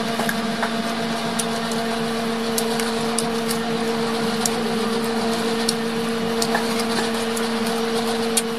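Steady machine hum with a low and a higher tone, unchanging throughout, with short sharp clicks scattered over it from a person chewing crisp wax apples (tambis).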